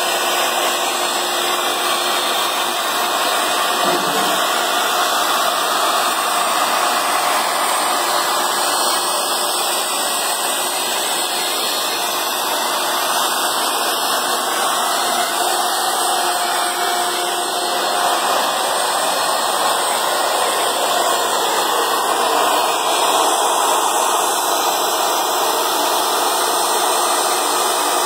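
Industrial machinery running steadily: a loud, continuous rushing noise with faint steady tones, unchanging throughout.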